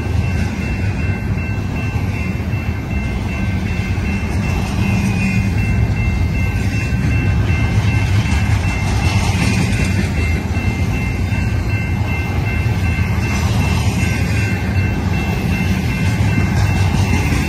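A BNSF double-stack intermodal freight train's well cars rolling past at close range. Steel wheels on rail give a steady, dense rumble with a faint, steady high-pitched tone over it.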